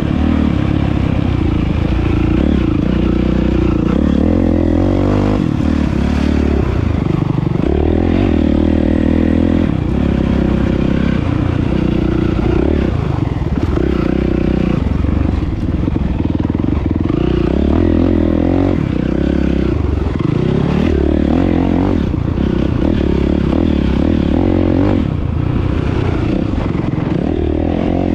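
Dirt bike engine running hard along a dirt track, its pitch climbing and dropping again every couple of seconds as the throttle is worked and gears change.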